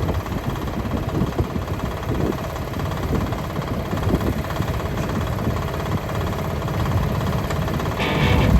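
Mini excavator engine running steadily at a low, even rumble. Background music comes in near the end.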